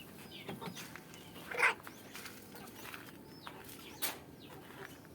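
Chickens calling: short, high chirps dotted through, with one louder call about a second and a half in and a sharp click near the end.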